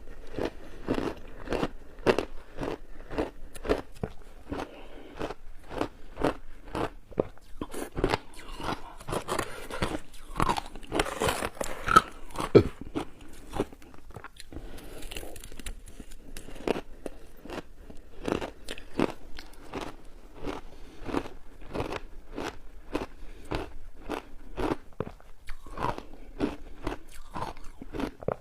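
Close-up chewing of crunchy shaved ice coated in matcha tea and milk powder: a continuous run of sharp crunches, several a second, with a few louder bites about twelve seconds in.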